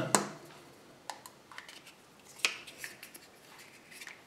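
A hollow Kinder Surprise milk-chocolate egg is cracked open by hand and its yellow plastic toy capsule handled. There is a sharp snap right at the start, another about two and a half seconds in, and light clicks and rustles between them and near the end.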